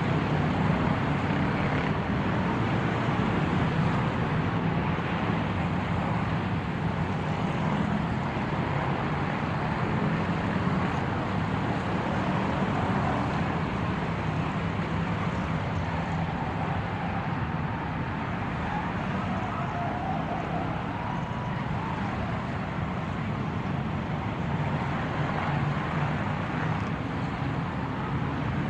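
A car's engine and road noise, running steadily and evenly, with no revving and no sudden events.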